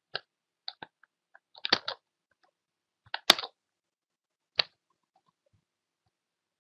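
Computer keyboard keys clicking in a few separate presses, with a quick run of clicks near two seconds in; the loudest click comes a little past three seconds.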